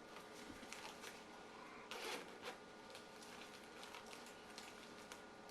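Faint rustling with a few soft clicks as small gear is handled and taken out of a bag, the clearest knock about two seconds in.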